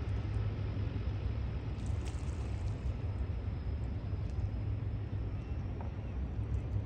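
De Havilland turboprop floatplane taxiing on the water: a steady, unchanging low engine rumble.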